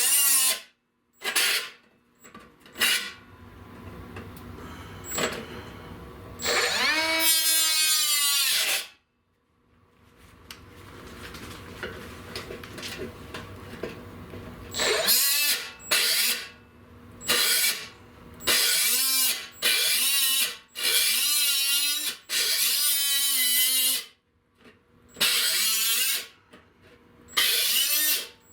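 Handheld electric power tool cutting sheet steel in repeated bursts, its motor whining up to speed and winding down each time, with quieter gaps between.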